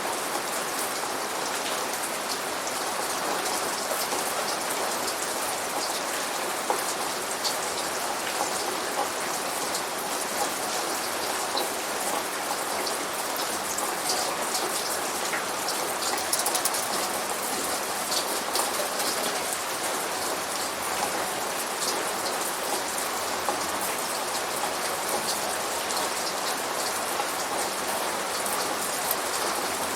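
Steady rain falling on a surface, an even hiss dotted with many separate drop hits, a few sharper ones standing out.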